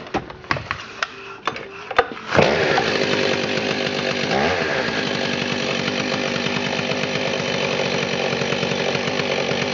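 Stihl 038 AV Super two-stroke chainsaw. A few sharp clicks and knocks come first, then the engine fires a little over two seconds in and keeps running steadily, its speed dipping briefly and picking back up about two seconds later.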